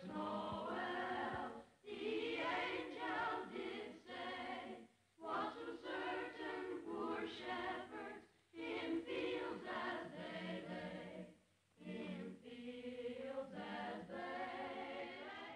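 Choir singing in five phrases with short breaks between them.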